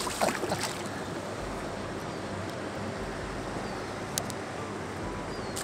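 Steady wash of flowing river water, with a few short splashes in the first half second and a single sharp click about four seconds in.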